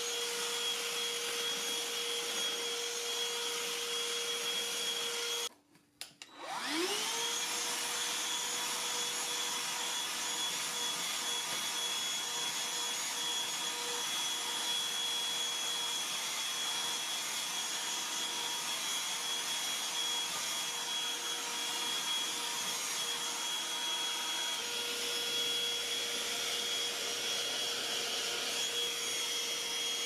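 Black+Decker BDH2000PL 20-volt cordless handheld Pivot vacuum running with a steady high whine. About five seconds in it cuts out for about a second, then spins back up with a rising whine and runs steadily again.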